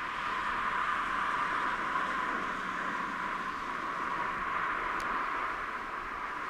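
Steady rushing jet noise of a heavy airliner on approach to land, heard as an even hiss with little low rumble.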